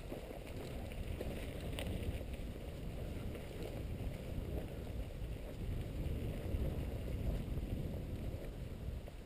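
Steady low rumble of wind buffeting a helmet-mounted action camera, mixed with mountain bike tyres rolling over a dirt trail.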